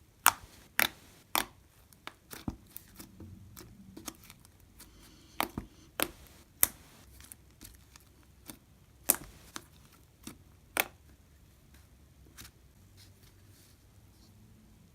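Soft butter slime being kneaded and stretched with lotion, giving irregular sharp clicks and little sticky pops, closer together in the first half and fewer near the end.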